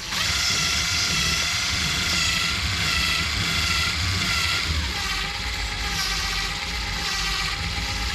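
A small motor running steadily with a whine, its pitch dropping slightly about five seconds in.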